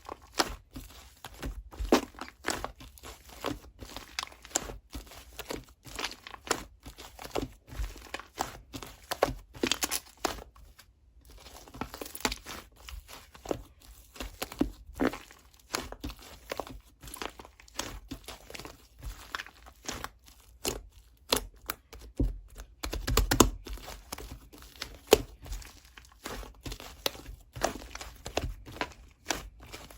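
Close, irregular crinkling and clicking of something being handled, with a few louder knocks.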